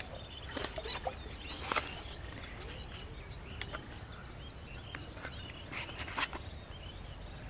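Rural outdoor ambience: a steady high-pitched insect drone, with small bird chirps and a few faint clicks scattered through.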